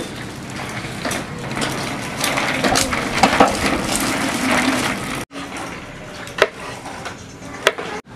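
Plastic wrapping crinkling and crackling as it is slit and peeled off a block of tempeh with a kitchen knife. About five seconds in the sound breaks off abruptly, and two sharp knocks follow, like the knife tapping the wooden cutting board.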